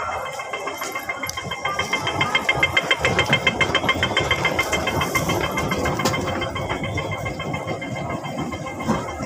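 Train rumble in a metro station, steady, with a fast, evenly pulsing rattle for a couple of seconds starting about a second and a half in.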